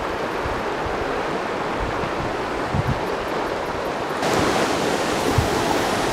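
A small creek waterfall and its rapids rushing steadily. The rush grows a little louder and hissier about four seconds in, with a few soft wind bumps on the microphone.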